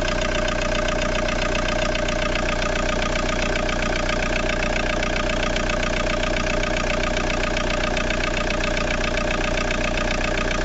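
Ford Mondeo Mk3 engine idling steadily.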